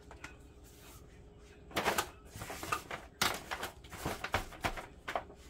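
Disposable aluminium foil pan crinkling and popping as damp fabric is laid into it and pressed flat by hand. It is a string of crackly rustles and sharp clicks that starts about two seconds in.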